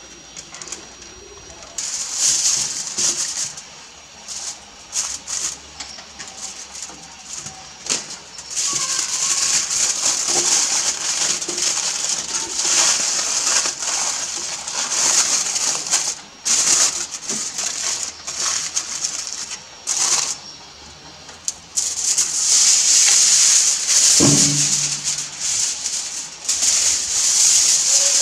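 Aluminium foil crinkling and rustling in repeated bursts as hands fold it around rotisserie-cooked pork ribs and knuckle.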